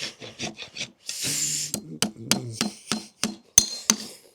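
Farrier's rasp being drawn over a draft horse's hoof, a run of short scraping strokes about three a second with one longer stroke about a second in and a sharp knock near the end.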